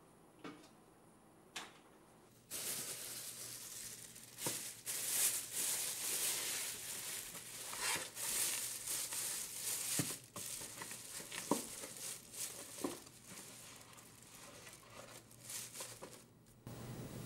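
A white bakery bag crinkling and rustling with many sharp crackles as it is opened and a croissant is unwrapped from it. The rustling starts a couple of seconds in, after two faint ticks.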